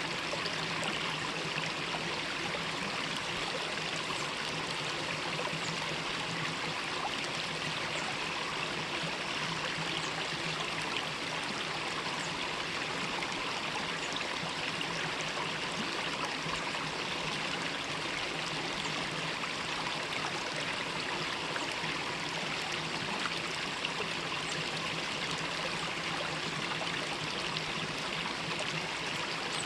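Mountain valley stream running over rocks, a steady rushing flow with trickling.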